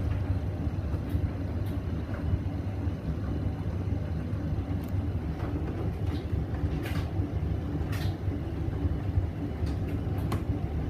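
Hoover VisionDynamic washing machine running its final rinse with fabric softener going in: a steady low hum and rumble, with a few faint clicks.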